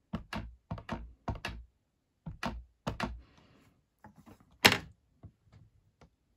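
An ink pad dabbed repeatedly onto a clear stamp to ink it: a quick run of light taps, often in pairs, about three a second, stopping about three seconds in. A single louder thunk follows about three quarters of the way through, then a few faint clicks.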